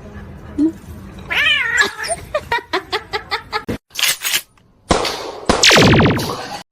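Domestic cats meowing and caterwauling. There is a wavering meow, then a quick run of short calls, and near the end a loud, drawn-out yowl, with abrupt breaks between them.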